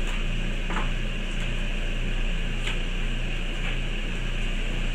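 Steady mechanical hum with a hiss over it, like a running fan or appliance motor, with a few faint short handling sounds on top.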